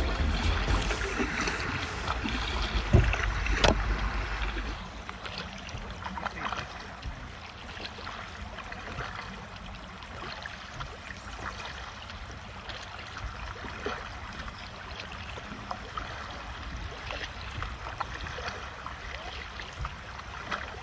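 Kayak paddles dipping and splashing with water lapping and trickling around inflatable kayaks on a slow river, with small scattered drips and splashes. For the first four seconds a low rumble and two sharp knocks sit over the water sound, then it settles to a steady quieter lapping.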